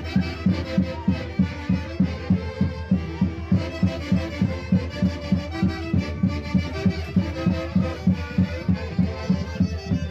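Live Huanca Santiago music from a festival orquesta: a steady drum beat, about three beats a second, under reed wind instruments playing the tune.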